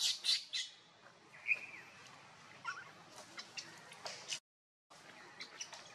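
Short high chirping calls, some sliding down in pitch, among scattered clicks and rustles. The sound drops out completely for about half a second past the four-second mark.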